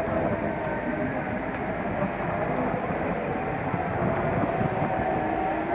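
Komatsu PC 200 hydraulic excavator working: steady diesel engine noise with a hydraulic whine that wavers slightly in pitch.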